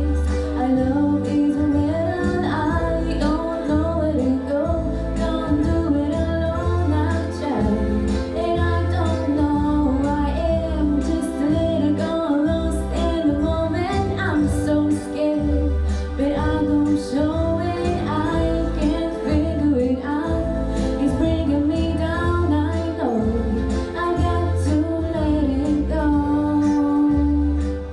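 A girl singing a song into a microphone over a musical accompaniment with a steady pulsing bass, amplified through a PA in a hall.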